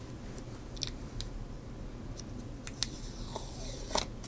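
Faint scattered clicks and a short rustle of plastic from handling the EK CPU water block and peeling the protective tape off its base.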